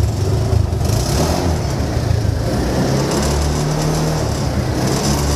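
Single-cylinder four-stroke Honda Vario scooter engine running through a newly fitted Vario 125 exhaust muffler, a steady low exhaust note.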